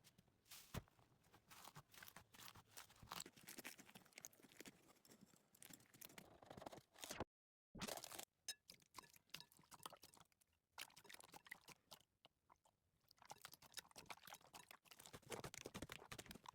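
Slime being squeezed and poked by hand, giving a dense run of small crackling and clicking sounds. The sound cuts off to dead silence for about half a second around seven seconds in, then the crackling resumes.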